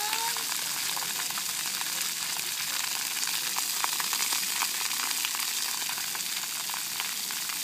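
Splash pad fountain jets spraying and water falling back onto wet concrete: a steady hiss with small crackling splashes throughout.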